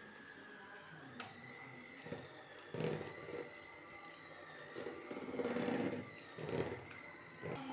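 Electric hand mixer running, its beaters creaming margarine in a plastic bowl. There is a steady motor whine, and the churning swells louder several times.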